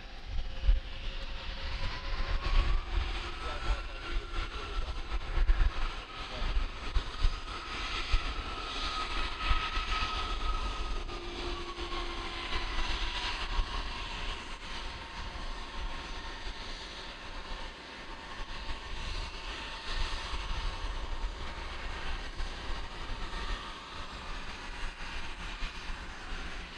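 Jet aircraft engines running. A whine rises a few seconds in, holds, then falls away around twelve seconds in, over a steady rush and a gusty low rumble.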